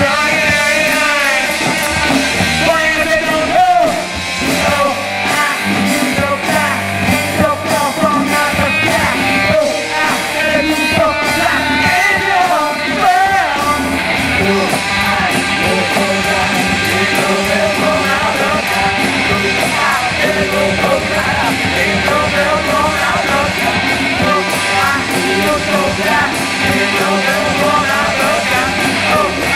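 Live rock band playing loud: drums keeping a steady beat under electric guitars and bass.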